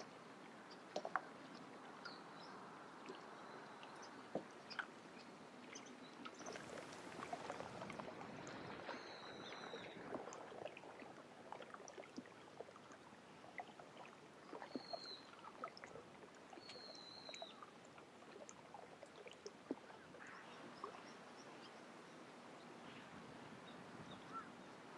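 Faint water ambience of small lapping splashes and clicks, with a few short, high bird calls between about nine and eighteen seconds in.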